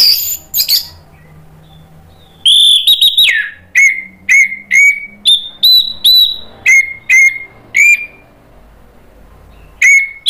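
Orange-headed thrush singing loudly: a short burst of high notes at the start, then about two and a half seconds in a long whistled note that falls in pitch, followed by a run of short, sharp repeated phrases at about two to three a second. The song pauses near the end and starts again just before it stops.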